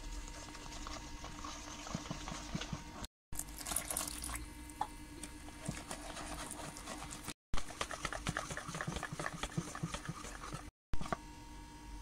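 Flour being stirred into an egg-and-water batter in a bowl: wet, sloppy mixing sounds with many rapid small clicks of the utensil, broken by three brief silences.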